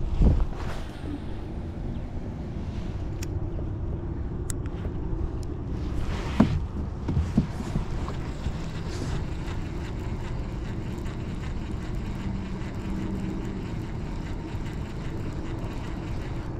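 A fishing reel being cranked steadily on a crankbait retrieve, a low, even whirring, with a few sharp clicks and knocks.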